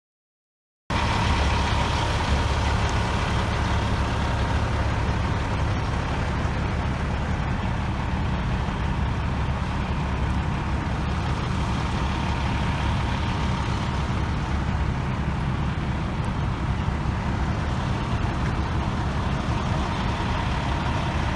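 Steady low rumble of a motor vehicle running, with a faint steady high tone over it. It starts abruptly about a second in.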